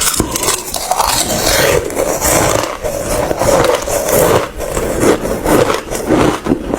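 Ice being bitten and chewed close to the microphone: loud, dense crunching that goes on without a break.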